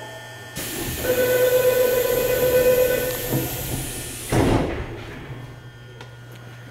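Subway train doors closing. A steady hiss with a warning tone runs for about three and a half seconds and ends in a thud as the doors shut, leaving a low steady hum.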